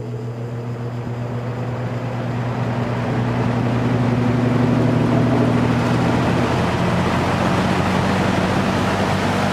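Early-1960s GE F15W13 box fan starting up and coming up to high speed: a steady motor hum under a rush of air from the blades that grows louder over the first five seconds or so, then holds steady at full speed.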